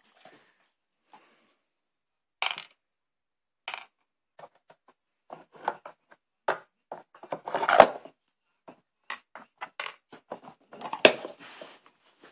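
Hard plastic lids and boxes of a Trixie Poker Box dog puzzle toy clicking and clattering as they are handled, lifted off and set back down. A scattered run of quick knocks that grows busier, with two louder clacks in the second half.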